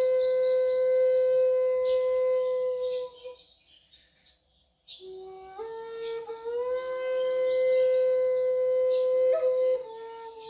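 Flute playing long held notes: one note sustained, then a pause of about a second and a half, then a new note that slides up and holds before dropping slightly near the end. High bird-like chirps sound above it throughout.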